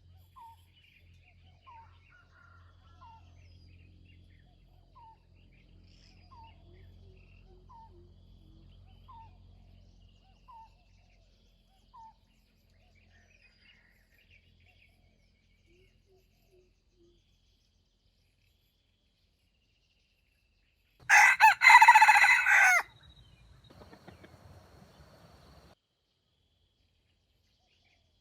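A jungle fowl rooster gives one loud, short crow about three quarters of the way through. Before it, a faint short chirp repeats about once a second for the first dozen seconds.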